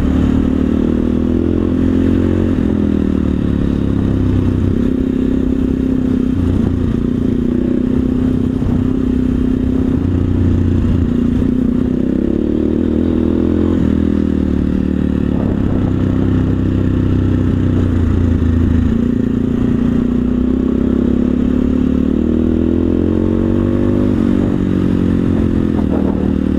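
SWM SD 650 X single-cylinder dual-sport engine running steadily while riding at moderate speed, its pitch rising and falling gently with the throttle. Under it is the rough rattle of tyres on a dirt road.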